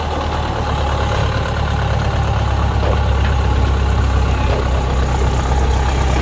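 Kubota DC70 combine harvester's diesel engine running steadily with a low, even hum.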